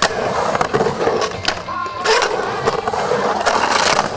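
Skateboard wheels rolling and carving on a concrete bowl, with several sharp clacks as the board meets the pool coping at the lip.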